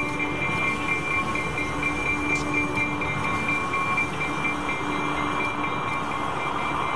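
Budd RDC diesel railcar running through the rail yard: a steady diesel drone with a constant whine.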